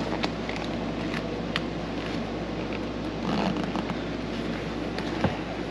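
Zipper of a car seat cover being worked up the side of the seat back, with rustling and scraping of the cover material and scattered small clicks; a sharp click a little after five seconds in is the loudest moment.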